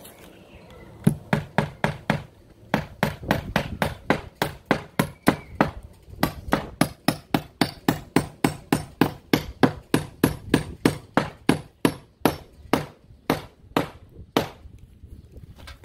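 Hammer driving 8-penny vinyl-coated sinker nails by hand through wood siding: a long run of sharp blows, about three a second, with short pauses between nails. The blows stop a little before the end.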